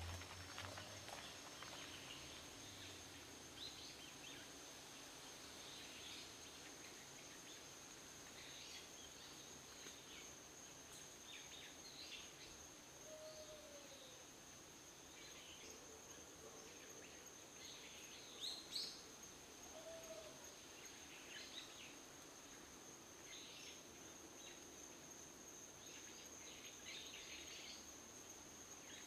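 Faint woodland ambience: scattered short bird chirps over a steady high-pitched insect drone, with two brief lower bird calls around the middle.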